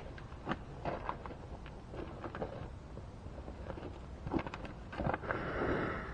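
Scattered light clicks and knocks of small engine parts and tools being handled, with a short stretch of rustling about five seconds in.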